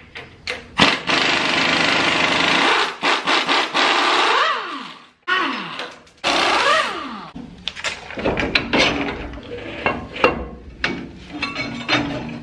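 Impact wrench hammering in several long bursts as it breaks loose and runs off the U-bolt nuts on a pickup's rear axle. Its motor pitch rises and falls each time the trigger is squeezed and let go. Sharper metal knocks follow near the end.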